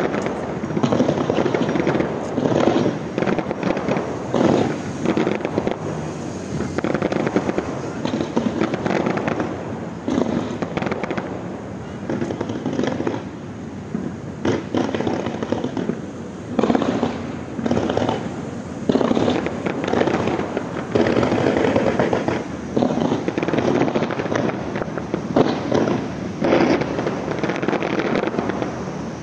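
Fireworks display: a rapid, continuous barrage of bangs and crackling, the loudness rising and falling from one volley to the next.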